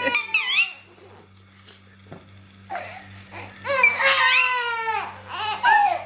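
Infant crying: a few short cries at the start, a pause, then a long wail falling in pitch about four seconds in, followed by shorter sobbing cries near the end.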